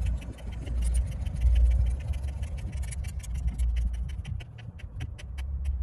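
Thumb screws on a clamp-on autopilot's yoke collar clamp being turned by hand, giving a string of sharp small clicks and scraping that grow quicker and more regular in the second half, about four a second near the end, over a low rumble.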